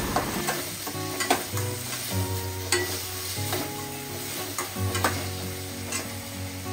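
Chopped onion with ginger-garlic paste and green chillies sizzling in hot oil while being stirred, a spatula clacking against the pan about once a second. Quiet background music plays underneath.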